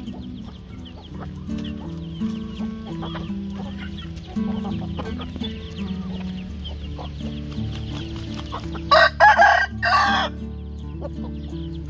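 A rooster crows loudly about nine seconds in, in two parts, over chickens clucking. A steady music track with sustained low notes plays underneath throughout.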